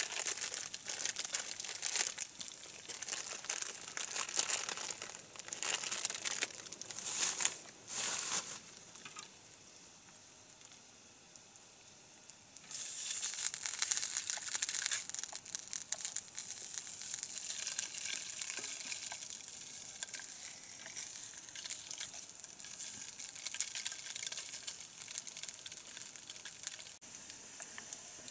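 Plastic sausage wrappers crinkling and tearing as they are peeled off by hand. About 13 seconds in, a steady hiss sets in from the frying pan on a portable gas stove as the sausages cook, loudest at first and slowly easing off.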